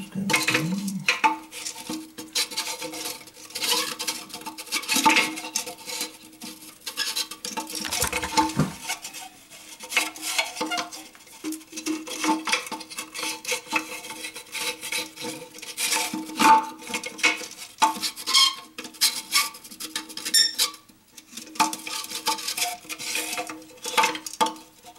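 Hands working the plastic flush valve inside a toilet tank: a long run of irregular clicks, knocks and scrapes as the parts are twisted and pressed into place.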